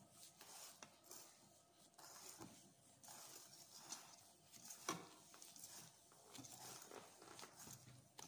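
Faint swishing and squelching of a wire whisk folding whipped egg whites into génoise batter in a stainless steel bowl, with a few light clicks of the whisk against the bowl.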